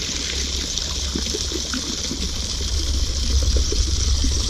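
Water gushing steadily from an outlet in a concrete wall and splashing into a pond, with a low rumble underneath.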